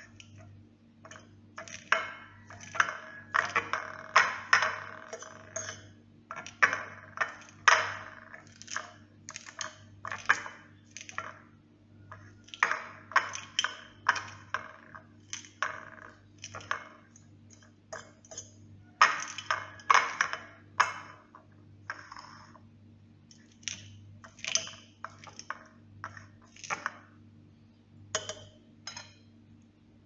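A metal spoon chopping boiled egg and crushed eggshell on a ceramic plate: repeated irregular clicks and taps of metal against china, over a low steady hum.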